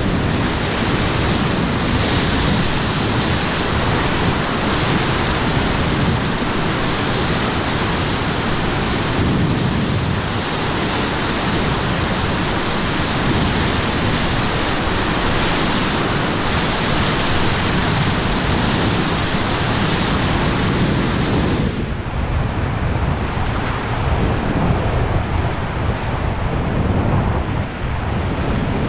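Churning whitewater of a big river rapid, heard from a raft riding through it: a loud, steady rush of water. The hiss eases about three-quarters of the way through as the water gets less rough.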